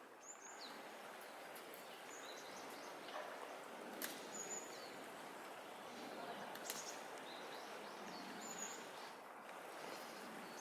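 Steady outdoor background noise with short high bird chirps every couple of seconds.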